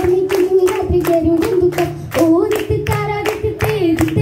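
A girl singing a vanchipattu, the Kerala boat song, in long held notes, with steady rhythmic hand-clapping keeping time.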